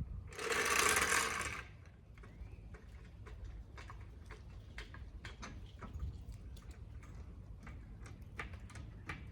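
A short hissing burst lasting about a second, then a long run of irregular light clicks and ticks, like small mechanical or hand-tool clicking.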